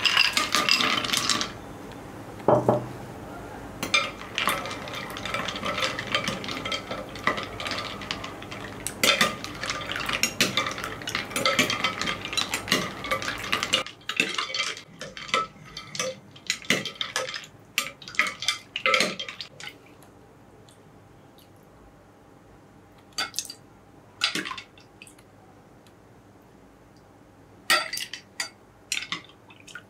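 Ice cubes tipped into a glass bowl of milky sherbet with a loud clatter, then a steel ladle stirring the ice around, clinking against the glass bowl. Later come only a few separate clinks as the ladle serves the drink into a glass.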